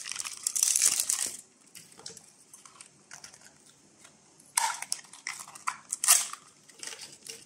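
Thin plastic wrappers crinkling as they are handled and torn open, in bursts: a long crackly stretch in the first second or so, then two shorter bursts later on.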